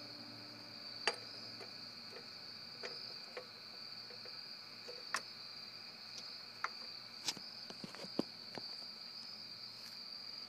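Steady high trill of night insects, typical of crickets, with a handful of sharp clicks and taps from glass beakers being handled and set on top of one another.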